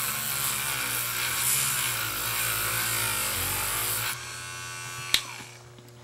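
Small battery-powered rotary tool sanding spray paint off a plastic Rubik's cube piece: a buzzing motor with a harsh grinding hiss. About four seconds in, the grinding stops and the motor runs free, then a click and the motor winds down.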